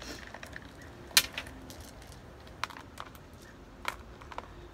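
Scattered light clicks and taps of small decorative stones being handled and set into a plant pot, the sharpest about a second in.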